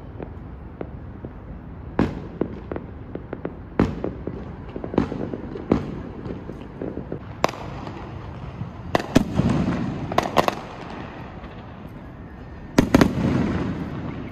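Aerial fireworks going off: irregular single bangs and pops, with two clusters of rapid bangs about nine and thirteen seconds in, over a steady low background rumble.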